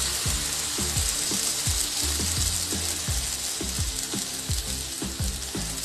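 Spinach puree sizzling in a pan of hot fried masala as it is stirred with a spatula, over background music with a steady beat.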